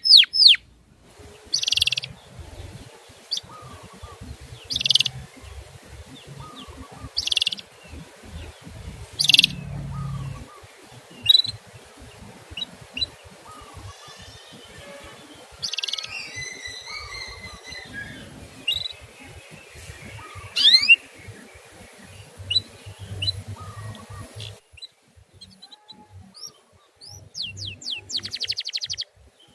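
Canary giving short, sharp 'cuit' chirps, repeated one at a time every two to three seconds, with a short twittering phrase about two thirds of the way through: a masteran call for teaching young canaries.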